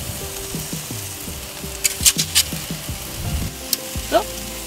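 Stuffed squid sizzling on perforated aluminium foil grill trays over a hot grill: a steady hiss with a few sharp crackles.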